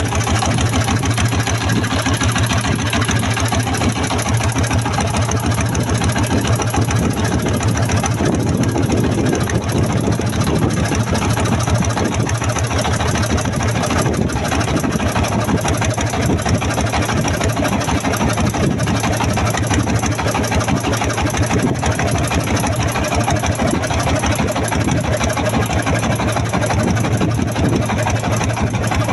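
Boat engine running steadily with a fast, even chugging, under a constant hiss.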